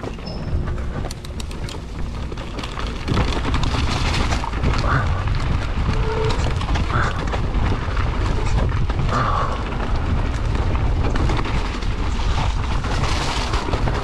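Wind buffeting the microphone and tyres rolling over dirt and rock on a mountain bike descent, getting louder about three seconds in as the bike speeds up.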